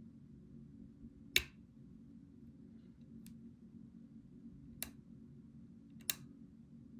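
Sharp clicks of lock picking: a pick and tension tool working the pins of a pin-tumbler challenge lock. Five scattered clicks, the loudest about a second and a half in and a quick pair near the end, over a steady low hum.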